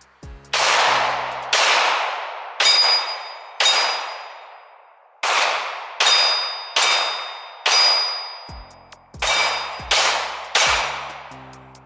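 Sig Sauer M17 9mm pistol fired about a dozen times at a slow, even pace, roughly one shot a second. Many of the shots are followed by the ringing of steel targets being hit.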